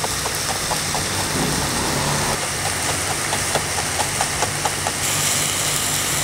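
Ceramic chef's knife chopping a celery stalk on a bamboo cutting board: quick, even taps about four to five a second. Under it, a steady sizzle of onion and garlic sautéing in a pan, with a low steady hum.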